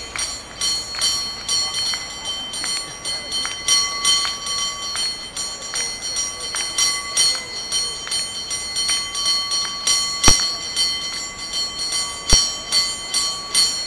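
San Francisco cable car bell rung by hand in rapid strokes with shifting rhythms, its ringing tones carrying between the strikes. Two sharp knocks sound about ten and twelve seconds in.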